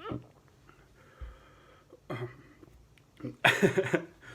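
A man's short hiccups and breathing, with a louder breathy vocal outburst about three and a half seconds in. The hiccups are brought on by the burning heat of a raw Carolina Reaper pepper.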